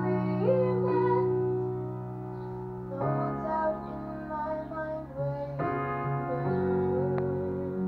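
A woman singing into a handheld microphone over a piano accompaniment. The piano holds chords that change about three seconds in and again near six seconds, and the voice wavers on a held note near the end.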